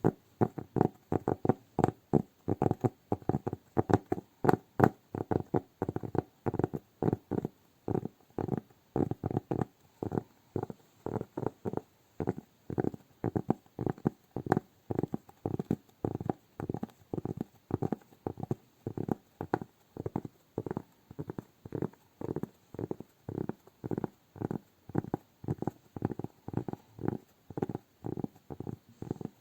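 Hands making a steady, even run of soft, dull strokes, about two to three a second, for slow ASMR relaxation.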